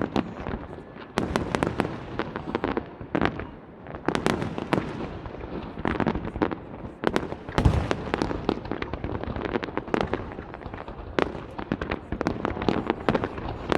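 Fireworks display bursting in quick, irregular succession: a dense run of sharp bangs and crackles, with a deeper, heavier boom about halfway through.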